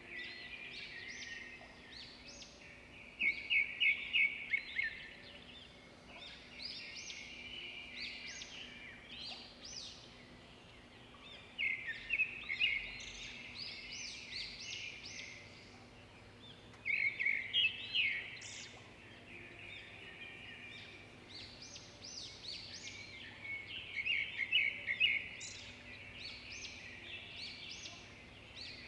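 Birds chirping and twittering in repeated bursts, with fast rattling trills, over a faint steady hum.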